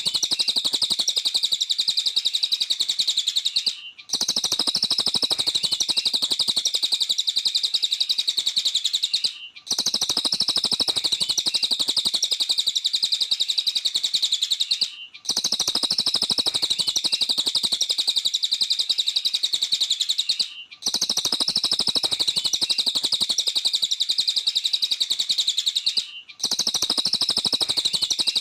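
Cililin bird song: a rapid, unbroken high-pitched chattering trill. It breaks off briefly about every five and a half seconds, in the evenly repeating way of a looped recording.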